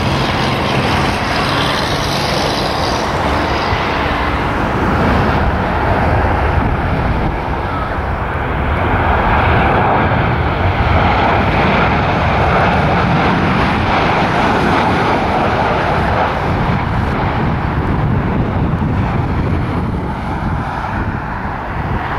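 Boeing 737 airliner's CFM56 jet engines on final approach, passing close overhead with gear down; the engine noise builds to its loudest about ten seconds in and eases off over the next several seconds.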